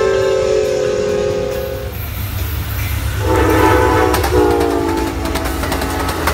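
Locomotive air horns sounding twice: a held chord that ends about two seconds in, then a second chord a little over a second later that drops in pitch as the train passes. Under both is the low rumble and clatter of a passing train.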